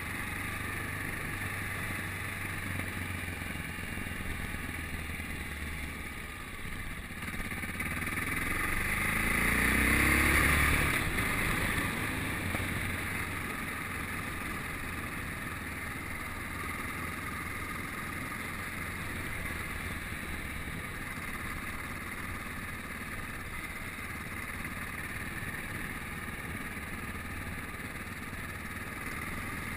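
Yamaha Ténéré motorcycle engine running at road speed, with steady wind rush. About eight seconds in, the engine revs up and grows louder for a few seconds, then settles back to a steady cruise.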